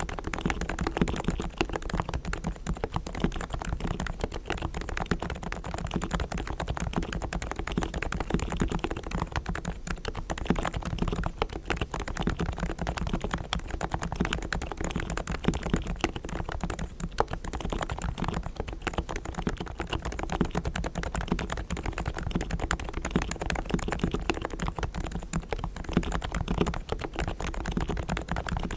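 Continuous fast typing on a Realforce R3 tenkeyless Topre electrostatic-capacitive keyboard with silenced 45 g uniform-weight switches, fully lubricated and foam-dampened: a dense stream of soft keystrokes.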